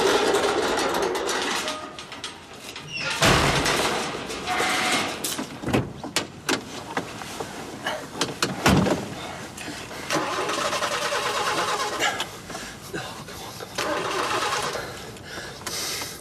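A vehicle engine starting and running, with three loud thumps a few seconds apart in the first half.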